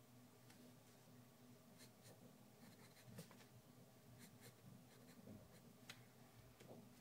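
Pencil drawing on paper: faint scratching strokes with a few light ticks, over a low steady hum.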